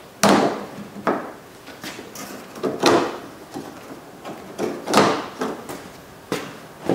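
Plastic lower grille being worked loose from the bumper cover by hand: about four sharp plastic snaps and clacks as its clips and tabs let go, with rattling and creaking between them.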